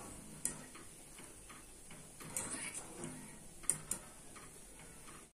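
A few faint, sharp clicks, one about half a second in, one a little before the middle and a quick pair later, over light handling noise.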